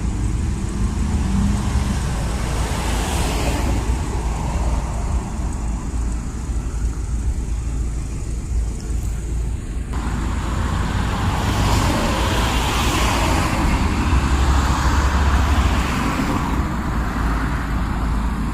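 Street traffic: a steady rumble with vehicles passing, swelling and fading about three seconds in and again from about twelve to fifteen seconds in.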